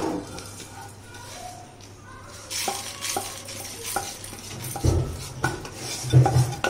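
Wooden spatula scraping dry-roasted whole spices, coriander seeds and peppercorns, around a nonstick kadai and sweeping them into a steel mixer jar, the seeds rattling and skittering over the pan. A few dull knocks sound near the end.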